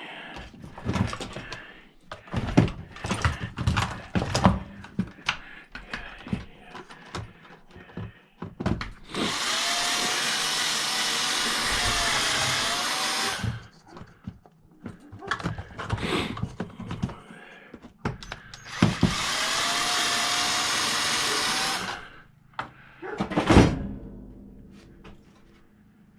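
Cordless drill-driver motor running in two spells of about four and three seconds, backing out screws from a booster pack's plastic case. Its pitch dips briefly under load. Clicks and knocks of the tool and case being handled come between the spells.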